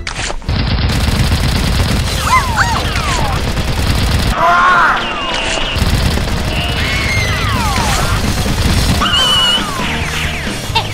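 Rapid machine-gun fire sound effects over background music, with a few short high sliding cries cutting in.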